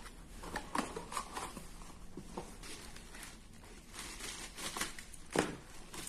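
Handling noise: scattered clicks, taps and light rustling as things are picked up and moved, with a sharper knock about five seconds in. No motor is running.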